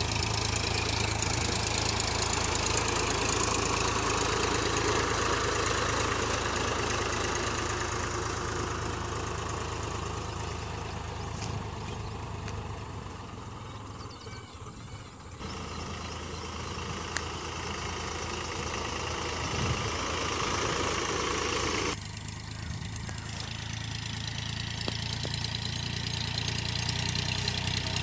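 Powertrac 434 tractor's three-cylinder diesel engine running steadily under load while pulling a leveller through ploughed soil. The engine fades as the tractor moves away near the middle, then comes back louder with abrupt jumps about halfway and about two-thirds through.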